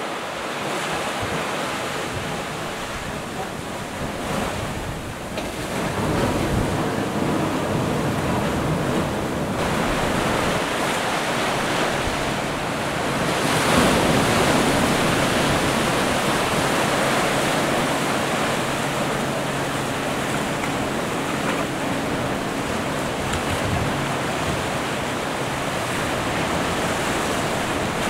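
Sea surf breaking and washing in over rocks and sand, a continuous rush that swells louder a few times as bigger waves come in.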